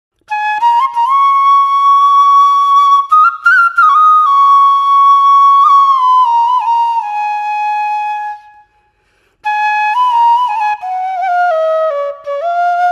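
Background instrumental music: a single solo melody of held notes with small slides. It breaks off for under a second about two-thirds of the way through, then goes on.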